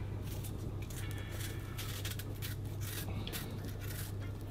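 Knife peeling the thick skin off a yellow yam: irregular short scraping and cutting strokes over a steady low hum.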